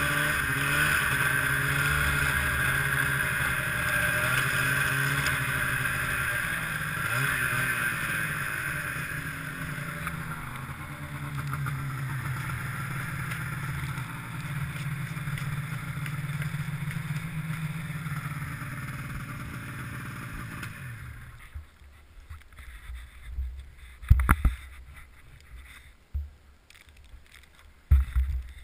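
Ski-Doo MXZ 670 snowmobile's two-stroke engine through a new Walker silencer, running at low revs. The pitch wavers for the first several seconds, then holds steady, and the engine shuts off about three quarters of the way through. After that come a few low bumps and one sharp knock.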